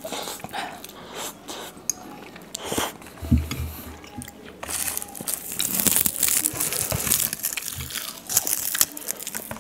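Close-miked eating of spicy instant noodles: chewing and biting with small clicks, then a stretch of loud crunching and crinkling from about five seconds in.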